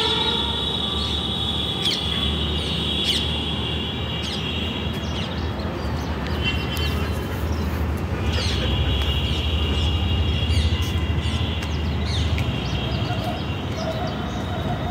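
Birds chirping, with short quick calls scattered through, over a steady low rumble that grows stronger past the middle.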